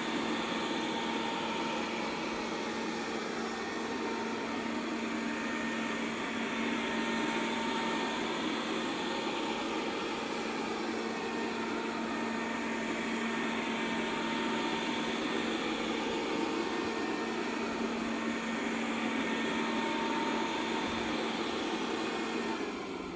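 Robit V7S Pro robot vacuum running in spot-cleaning mode, a steady motor hum with brush whirr. Near the end its motor winds down with a falling pitch as it finishes the spot clean.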